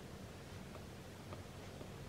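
Apple Pencil tip tapping and stroking on an iPad's glass screen: a few faint, light ticks over a low steady room hum.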